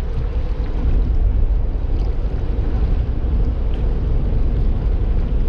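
Steady deep rumble with a faint hum above it from the Houtmangracht, a Spliethoff multipurpose cargo ship, as its engine and propeller drive it past close by through the ship canal.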